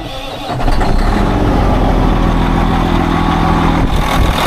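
Detroit Diesel Series 60 inline-six diesel in a Peterbilt 389 starting up: it catches and comes up to full volume within the first second, then runs at a steady idle.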